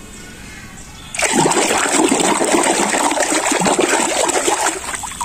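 Water running and splashing, starting suddenly about a second in and easing off near the end, as a toy animal figure is rinsed clean of slime.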